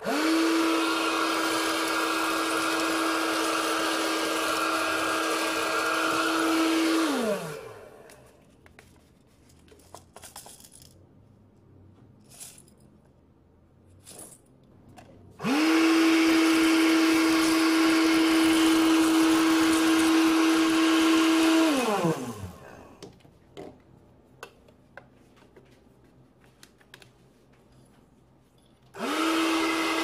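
A homemade PVC-pipe vacuum cleaner's 775 12-volt DC motor and fan are switched on and run with a steady high whine and rushing air. After about seven seconds the motor is switched off and spins down with a falling pitch. It is switched on again about halfway through, runs about six seconds and winds down again, then starts a third time near the end. Small clicks can be heard in the quiet gaps between runs.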